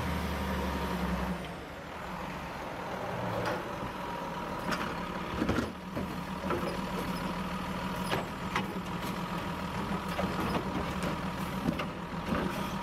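Automated side-loader garbage truck with its diesel engine running while the hydraulic arm grabs, lifts and empties a wheeled trash cart. Several sharp clanks come through the middle of the lift.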